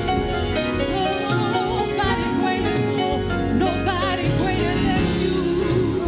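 Live gospel choir song with keyboard and band accompaniment, a lead voice bending and wavering through held notes over the instruments.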